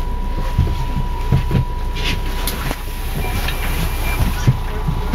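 Inside a coach bus: steady low engine and road rumble with several low thumps and knocks from the cabin, and a faint steady high whine throughout.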